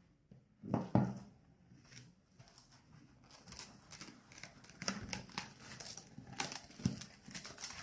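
Plastic cling film crinkling and crackling as it is pulled and wrapped over a pot of freshly sown seeds. There is a soft thump about a second in, then a dense run of small irregular crackles from about three seconds in.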